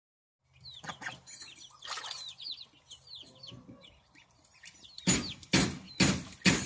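Goslings peeping in short, high chirps. From about five seconds in, a gosling bathes in a tub of water, splashing loudly about twice a second.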